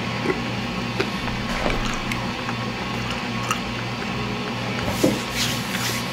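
Close-miked chewing of a mouthful of calzone: wet, squishy mouth sounds with small clicks scattered through, busier near the end.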